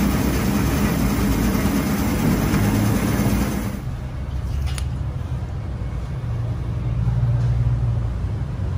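Electric meat slicer machine running, its motor and blades making a dense, steady whirring with a low hum as it cuts chicken into small cubes. About four seconds in the hiss drops away suddenly, leaving only the low motor hum.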